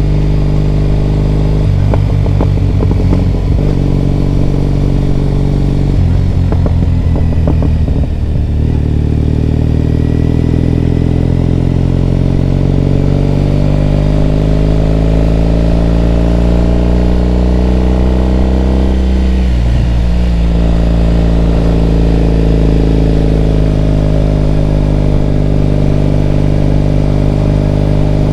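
Triumph Bonneville T100's parallel-twin engine and exhaust while riding. There are two short stretches of rapid pulsing in the first few seconds. Then the pitch climbs steadily as the bike accelerates, drops briefly at a gear change, and rises again.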